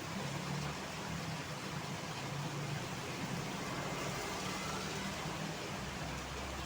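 Road traffic in heavy rain: a steady low engine hum under an even hiss of rain and wet road noise.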